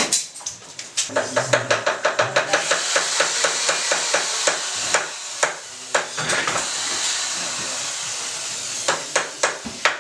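Rapid tapping, about five sharp knocks a second for several seconds, then a steady hiss for about three seconds, with scattered knocks again near the end.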